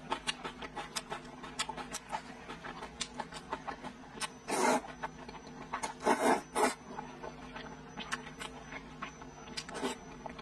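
Close-miked eating sounds: wet chewing clicks and mouth smacks throughout, with a loud slurp of hand-rolled noodles about four and a half seconds in and a longer, two-part slurp about six seconds in.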